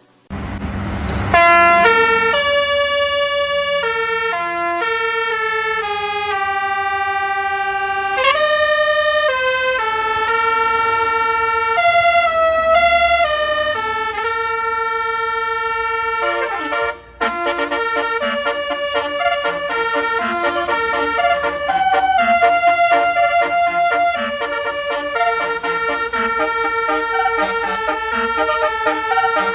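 Indonesian bus 'telolet' multi-tone horn playing a melody of held notes that step up and down, after a short burst of noise at the start. About halfway through it cuts out for a moment, then carries on with quicker, shorter notes.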